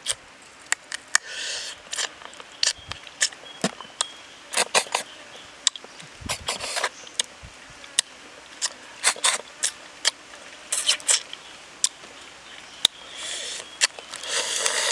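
Roasted giant river prawn shells and claws being cracked and picked apart by hand: many sharp clicks and short crackles, irregularly spaced, with a denser stretch of crunching near the end.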